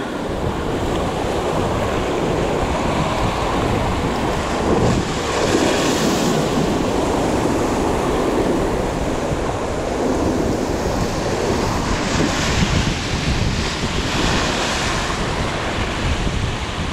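Strong wind buffeting the microphone over choppy surf, with waves breaking and washing against rocks. The wash swells louder twice, about a third of the way in and again past two-thirds.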